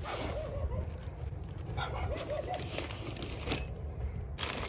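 An animal whimpering in two short wavering bouts, over a steady low rumble, with rustling and a sharp rustle near the end.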